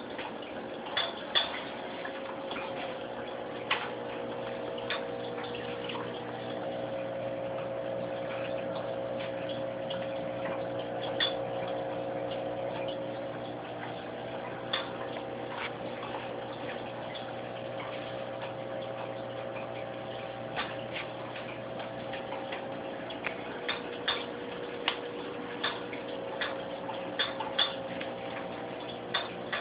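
Aquarium filter running with a steady hum, overlaid by irregular sharp clicks and ticks, a few at a time, that stand out above it.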